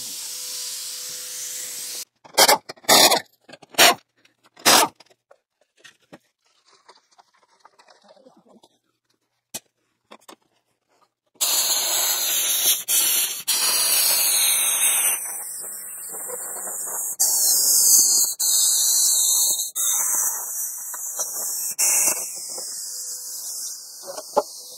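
Plasma cutter cutting through a rusted truck bumper's mounts: a few short hissing blasts, a pause, then a long, steady hissing cut from about halfway through that runs on nearly to the end.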